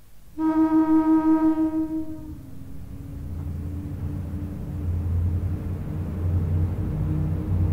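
A train horn sounds for about two seconds. After it, a train runs with a low rumble that grows louder.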